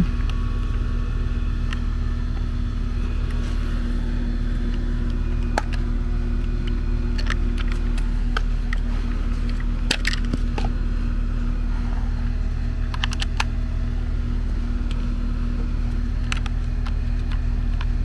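A steady low mechanical hum, with scattered light clicks and taps of metal hose fittings and a gauge being handled, a small cluster about ten seconds in.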